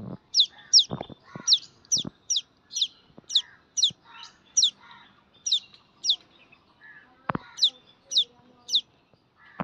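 Lesser whistling duck duckling peeping: thin, high peeps, mostly in pairs, repeated about once a second, with a few dull knocks in between.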